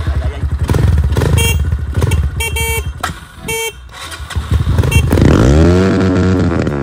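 Motocross bike engine running with throttle blips, then revved up and let fall back near the end. It is being tested after water may have got into its muffler. A few short beeps sound in the middle.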